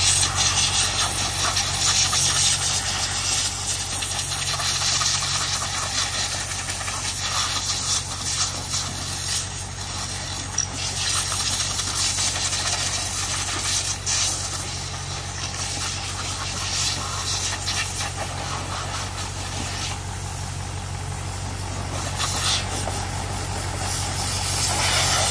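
Water spraying from a hose wand in a steady hiss, over an engine idling steadily underneath.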